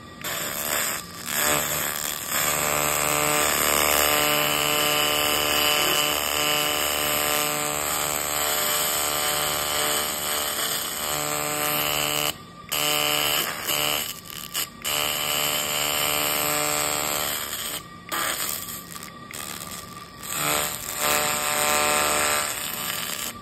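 Pulsed laser cleaning head firing on a metal plate: a loud, steady buzz of stacked tones as the beam works over the surface. It stops briefly a couple of times, goes on and off for a few seconds near the end, then runs again.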